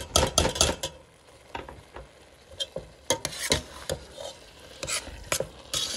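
Slotted metal spoon stirring mashed turnip roots in a stainless steel pot, knocking and scraping against the pot. The clicks come in quick succession in the first second, then irregularly every half second or so.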